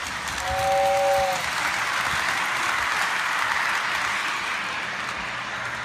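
Model train running on its layout: a steady hiss throughout, with a short horn of two notes held together sounding about half a second in for about a second.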